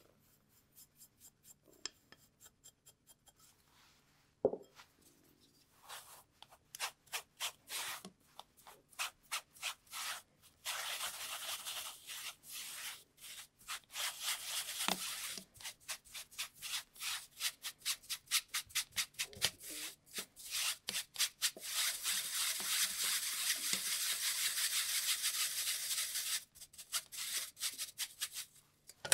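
A bristle brush scrubbing flour through a fine stainless-steel mesh sieve: quick back-and-forth strokes about three a second, at times running together into a steady scratchy scrubbing. A single sharp knock sounds about four seconds in, before the brushing starts.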